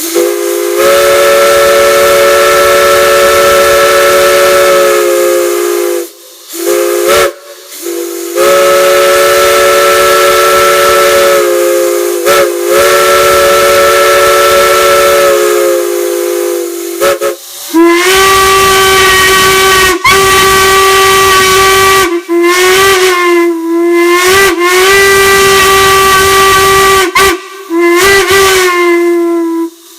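Steam whistles being blown. First a chime whistle sounds a chord of several notes in two long blasts, about five and seven seconds, with short toots between. Then, about two-thirds of the way in, a single-note whistle with a rich, overtone-heavy tone gives four blasts whose pitch sags as each opens and closes, with steam hiss underneath.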